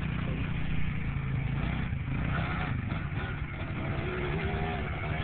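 ATV engine running, its pitch rising and falling as the throttle is worked in the second half.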